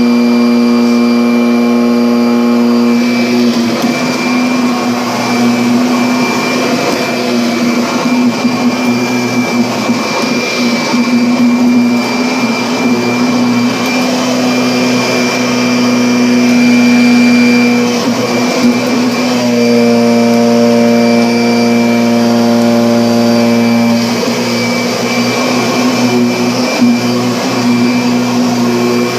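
Vacuum cleaner running steadily with a constant motor hum and a high whine. The hum's tone grows fuller for a few seconds at the start and again about twenty seconds in, with a brief swell in loudness shortly before that.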